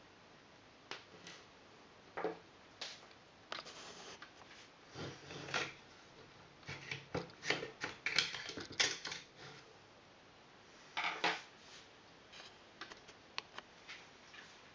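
Handling of metal parts on an M4-style airsoft rifle: irregular light clicks and short scrapes of metal as a thin metal rod is worked out through the front sight base. The scraping is busiest in the middle, with one more strong scrape a few seconds before the end.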